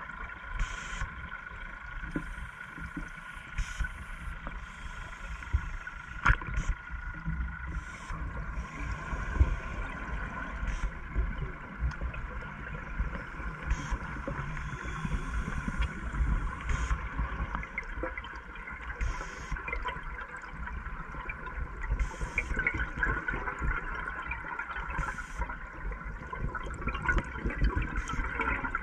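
Underwater sound through a camera housing: scuba regulator bubbles gurgling, with irregular knocks and a steady high hum underneath.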